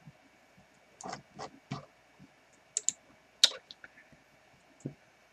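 Scattered clicks from a computer mouse and keyboard: about a dozen short, sharp ticks at irregular intervals, the loudest about three and a half seconds in.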